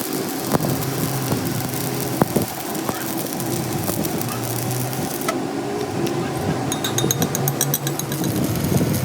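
An engine running steadily, with a few sharp knocks in the first half and a fast, high-pitched ticking in the last couple of seconds.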